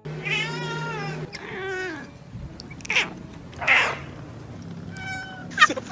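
Domestic cat meowing: one long drawn-out meow, then a shorter one falling in pitch, followed by two short breathy sounds and a few brief calls near the end.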